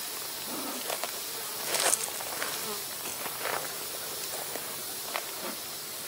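Honey bees buzzing in flight around a Langstroth hive entrance, a steady low hum, with a short hiss about two seconds in.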